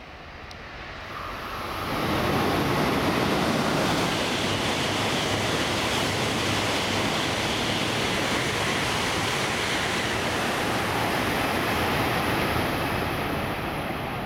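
Shinkansen train, an E2 series 1000 set coupled to an E3 series set, passing through a station at high speed without stopping. Its noise rises over about two seconds as it nears, then holds as a loud, steady rush of air and wheels on rail while the long train goes by.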